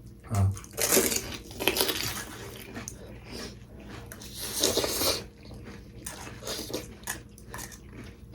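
Close-miked eating: several short, noisy bursts of mouth sounds and chewing, about one, two and five seconds in, with small clicks between them.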